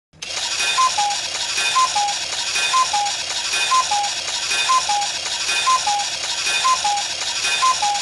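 Cuckoo clock going off: its two-note cuckoo call, a higher note falling to a lower one, repeats about once a second over a busy clicking and rattling of the clock's mechanism.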